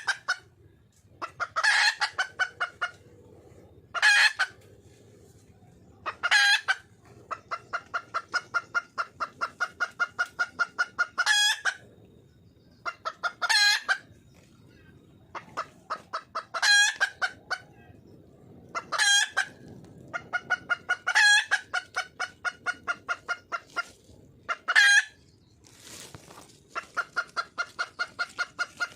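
Red junglefowl hen calling for a mate: runs of quick clucks, about five a second, broken every two to three seconds by a single louder, sharper note.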